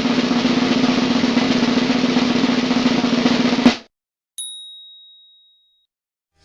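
Snare drum roll sound effect lasting about four seconds and ending on a sharp hit, followed by a single high bell ding that rings out and fades.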